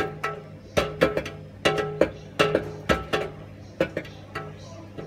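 A degu's plastic exercise wheel spinning and knocking, with about eighteen sharp, irregular knocks that each ring briefly at the same pitches, over a steady low hum.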